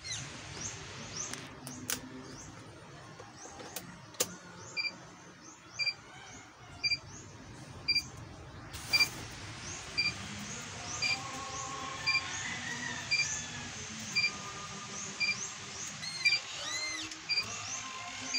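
Isuzu truck dashboard warning buzzer beeping steadily about once a second, starting about five seconds in. A couple of sharp clicks come before it, and faint high chirps sound throughout.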